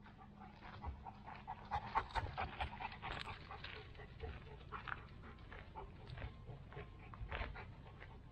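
A dog panting as it goes past, with footsteps crunching on a gravel road; loudest two or three seconds in, then fading as they move away.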